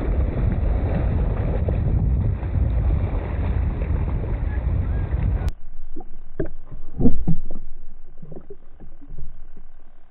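Wind buffeting the microphone over a steady rush of water. It cuts off suddenly about five and a half seconds in, and after that come irregular muffled knocks and thumps over a faint steady hum.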